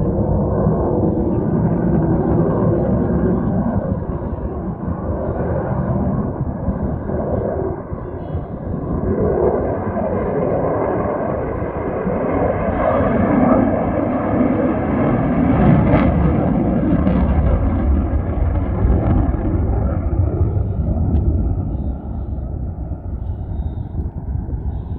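F-35 fighter jet passing, a loud jet roar that builds to its peak about two-thirds of the way through and then eases off.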